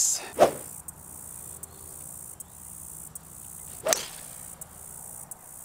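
5-wood striking a golf ball off the tee: one sharp crack about four seconds in, over steady insect chirping. A short knock comes about half a second in.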